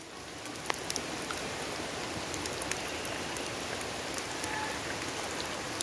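Steady rain falling, with a few sharp ticks of drops scattered through it.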